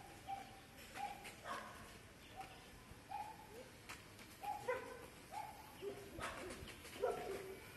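Short animal calls repeated about once or twice a second, some dropping in pitch.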